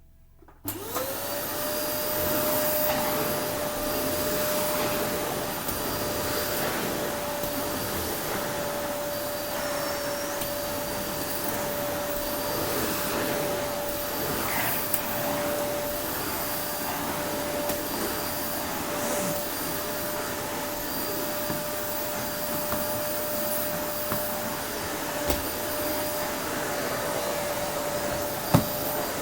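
Vacuum cleaner switched on under a second in, its motor whine rising quickly to a steady pitch and then running steadily. A single sharp knock comes near the end.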